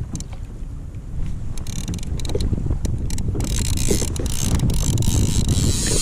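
Wind buffeting the action camera's microphone in a steady low rumble, with a rough high hiss of fine clicks joining from about three and a half seconds in.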